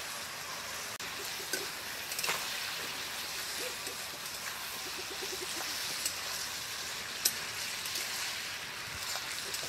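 Grated bottle gourd cooking in oil and its own released water in a pan: a steady sizzling hiss, with a few light clicks.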